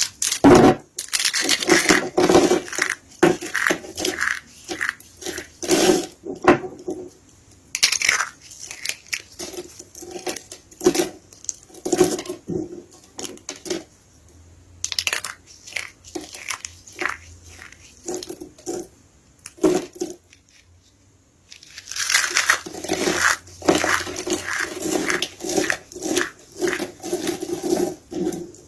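Soap being crushed, a long run of crisp crunching and crumbling strokes that stops for a moment about twenty seconds in, then starts again thickly.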